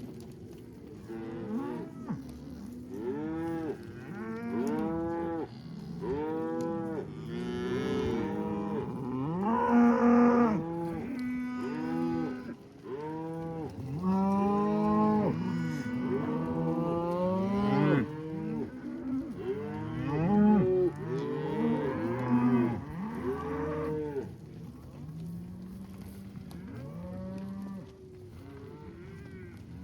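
A herd of beef cows mooing, many calls overlapping at once, some higher-pitched and some deeper, loudest about a third of the way in and again past the middle, thinning out near the end.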